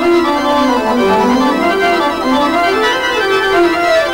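Background music: sustained chords with a slow melody line moving up and down beneath them.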